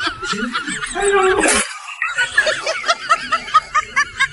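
High-pitched snickering laugh, a quick run of short repeated 'hee-hee' syllables at about four to five a second, with a brief burst of hiss about one and a half seconds in.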